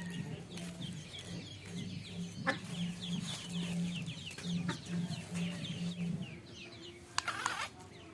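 Birds calling with many short chirps, over a low hum that cuts in and out until about two-thirds of the way through.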